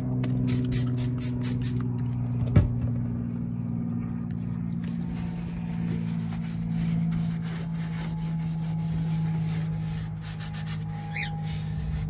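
Scrubbing and rubbing as a faucet part is wiped clean with degreaser: quick scratchy strokes in the first couple of seconds, a single knock a little later, then softer rubbing. A steady low motor-like hum runs underneath.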